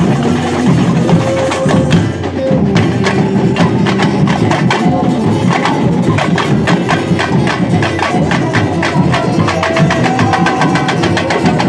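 Samba percussion ensemble (bateria) playing a fast, steady rhythm on drums and hand percussion, with a dense stream of sharp clicking hits over the drums.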